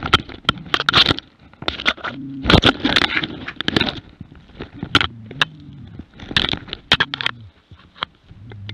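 A wolf attacking a Jämthund (Swedish elkhound) at close quarters: low growling and snarling in several bouts, over heavy scraping, rustling and knocking of fur and bodies against the harness-mounted camera.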